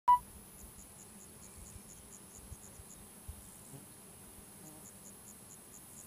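A cricket chirping: a steady run of short, high chirps about four or five a second, in two bouts with a pause of over a second between them. A short beep at the very start.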